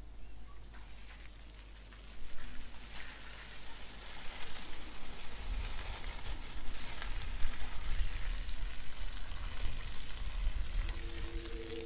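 A crackling, rain-like hiss that grows louder, joined by a deep low rumble about halfway through.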